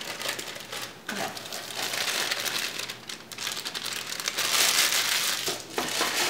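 Clear plastic bag crinkling and rustling as it is handled and shaken out, cake mix pouring from it into a glass mixing bowl; the rustle is loudest near the end.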